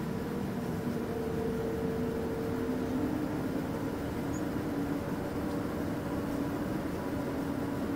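Steady hum and rush of a jet airliner heard from inside the cabin, with two held tones; the lower tone rises slightly about two seconds in.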